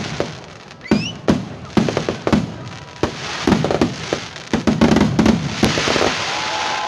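Fireworks display going off: a rapid run of sharp bangs, a rising whistle about a second in, and a dense crackling from about three seconds in.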